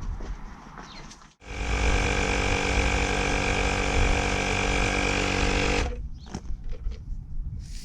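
Tyre inflator's small motor running steadily for about four seconds, pumping up the tyre that has just been repaired with a plug kit. It starts abruptly about a second and a half in and stops near the end.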